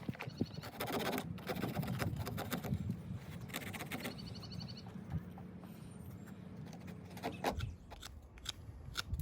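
Scraping and knocking as a thin, dry wooden branch is cut through with a Swiss Army knife.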